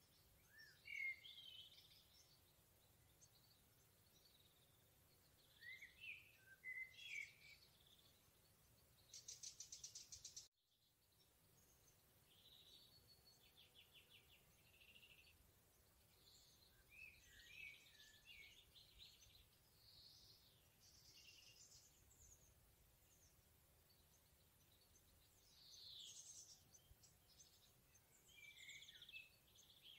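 Faint forest birdsong: several songbirds singing short chirping and warbling phrases in turn, with a fast pulsed trill about nine seconds in that cuts off abruptly.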